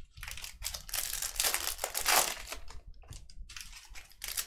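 Plastic-foil trading-card pack wrappers crinkling and crackling in several short bursts as packs are torn open and handled.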